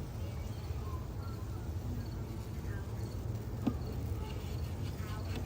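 Crickets chirping faintly in short repeated chirps over a low steady rumble, with a single sharp click about two-thirds of the way through.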